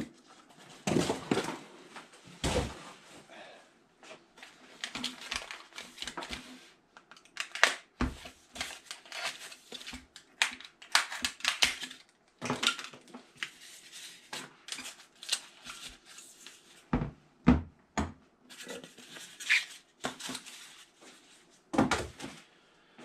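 Cardboard boxes and packing wrap being handled and pulled apart: irregular rustling, crinkling and tearing, broken by a few sharp knocks as boxes and parts are set down on the table.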